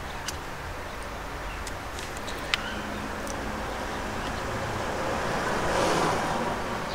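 Wind rushing over the microphone, swelling about five to six seconds in, with a few small sharp clicks as .22 rimfire cartridges are pressed one at a time into a Glock 44 magazine.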